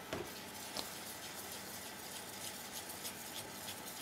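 A utensil stirring flour into a batter in a stainless steel mixing bowl: a sharp knock on the bowl near the start and another just under a second in, then light, irregular scraping and tapping against the metal.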